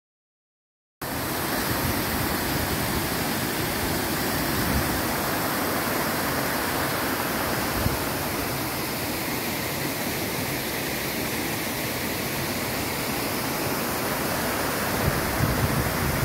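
Steady rush of water pouring over a small dam spillway, starting abruptly about a second in.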